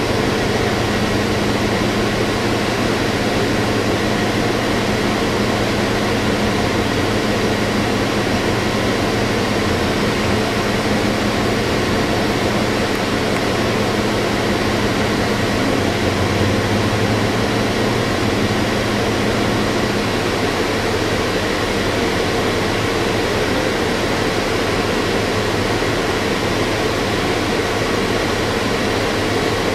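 Interior cabin noise of a 2012 New Flyer XD40 diesel transit bus under way: a steady engine and drivetrain drone with road and ventilation hiss. The engine note shifts about two-thirds of the way in.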